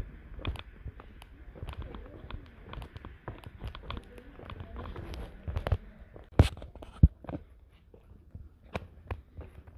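Footsteps on a cave walking trail mixed with the clicks and knocks of a hand-held camera being moved about, two sharp knocks standing out about six and a half and seven seconds in.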